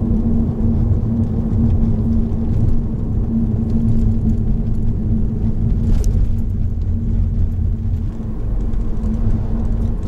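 Honda Odyssey RB3 minivan on the move: a steady low rumble of engine and tyres with a constant hum. There is a faint brief click about six seconds in.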